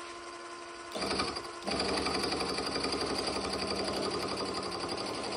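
Milling machine spindle running with a steady hum, then about a second in the cutter bites into a cast-iron casting. From just under two seconds in it takes a steady roughing cut, a louder, rough, even grinding over the motor hum.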